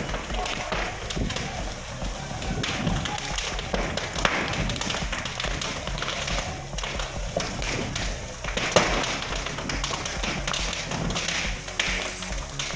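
Fire in a burning firecracker storeroom crackling, with many irregular sharp pops and cracks; the loudest crack comes about nine seconds in. Faint background music runs underneath.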